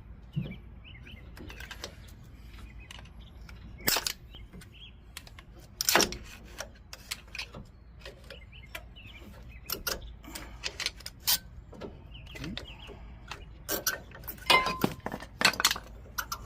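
Scattered metal clicks and knocks of rear disc brake parts being handled: the old pads worked out of the caliper bracket and the caliper set aside. The loudest knocks come about 4 and 6 seconds in, with a quick cluster near the end.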